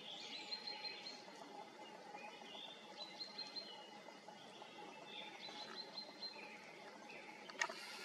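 Small songbirds chirping in the background, short high notes coming in a few quick runs over a faint steady outdoor hum. A single sharp click sounds near the end.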